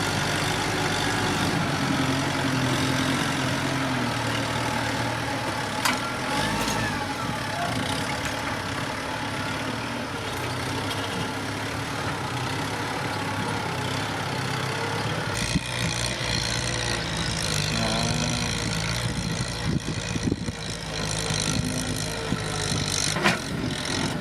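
Kubota M7040 tractor's diesel engine running steadily. About fifteen seconds in, the sound turns heavier and more rumbling, with scattered knocks.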